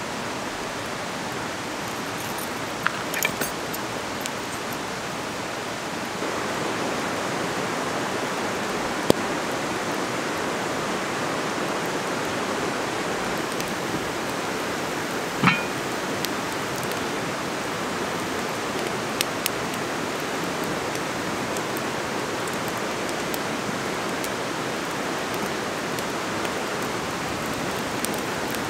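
Steady rush of a creek's flowing water, a little louder after about six seconds, with a few scattered clicks and knocks over it.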